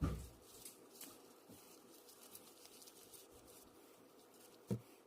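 Faint slime-handling sounds: soft rustles and small clicks, with a thump at the start and a sharp tap near the end.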